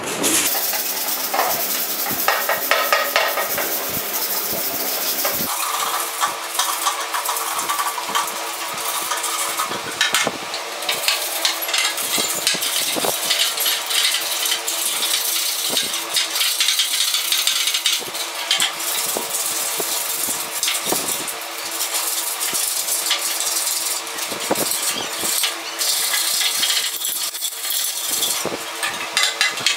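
Hand sanding of a Royal Enfield Bullet's painted steel side box with sandpaper: a continuous rasping scrape made of many uneven strokes, as old paint and rust are rubbed off.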